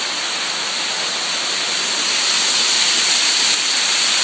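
A loud, steady hiss, strongest in the highest pitches, growing a little louder about halfway through.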